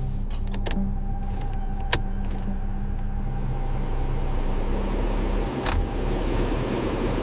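Steady low hum of a running motor, with a few sharp clicks in the first two seconds and another about six seconds in.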